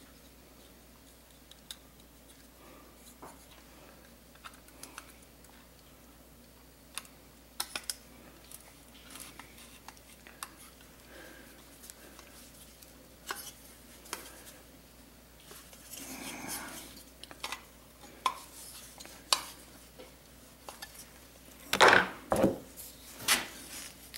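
Small metal clicks, clinks and scrapes as a T-handle hex wrench turns the screws holding the screen on a Stihl MS 660 chainsaw muffler. A few louder metal knocks come near the end.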